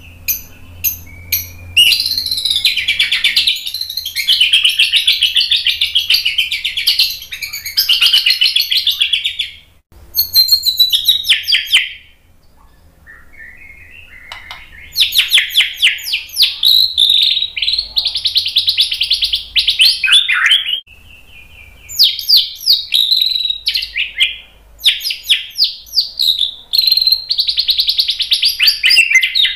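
White-rumped shama singing long, rapid phrases of varied whistles, chatters and trills, with short pauses between phrases and a quieter stretch about twelve seconds in. The bird is in excited full song, rattling off its learned repertoire of mimicked phrases.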